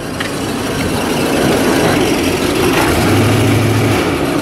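Chevrolet Vortec 350 (5.7-litre) V8 running, growing louder over the first couple of seconds and then holding steady.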